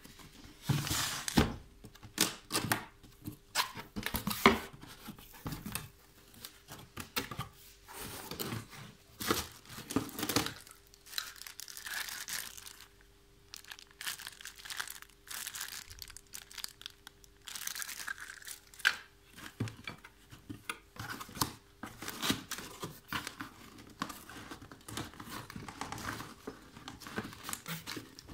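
Cardboard box and clear plastic bags being handled by hand while unpacking: irregular rustling and crinkling of packaging, loudest in the first few seconds.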